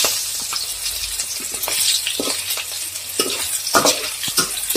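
Green chillies, bay leaf, dried red chilli and cumin sizzling in hot oil in a kadai, the tempering for khichuri. A metal spoon scrapes and clicks against the pan now and then as the spices are stirred.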